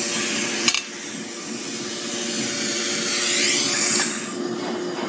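Surgical suction aspirator hissing over a steady motor hum. The hiss cuts off with a click under a second in, then swells and sweeps up and down again around three to four seconds in.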